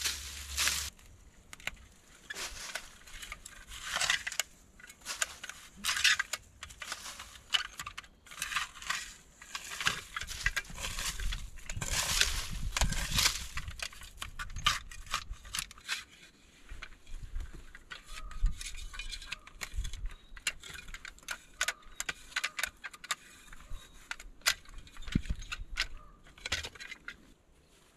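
Small folding shovel digging into leaf-strewn, stony forest soil: repeated metallic scrapes and crunches through dry leaves and dirt, dense in the first half, then sparser scrapes and clicks.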